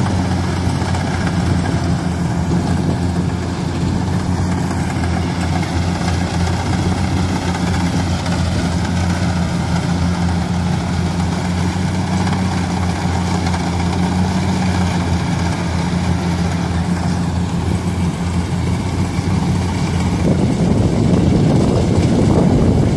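Tracked rice combine harvester's diesel engine running steadily as it cuts rice in a muddy paddy, a constant low hum with the threshing machinery behind it. It grows a little louder near the end.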